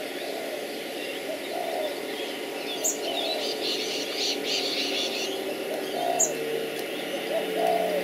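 Garden birds calling: a low rise-and-fall call repeated several times, with a patch of higher chirping in the middle.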